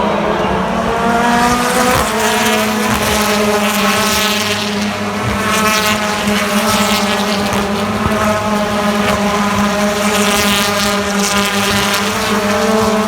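BTCC touring car's 2-litre turbocharged four-cylinder engine at high revs, climbing in pitch for about two seconds, then dropping at a gear change and running on at steady high revs.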